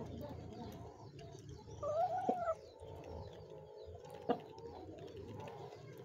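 Domestic hens feeding, with one short rising-then-falling call about two seconds in and two sharp clicks, one during the call and one about two seconds later.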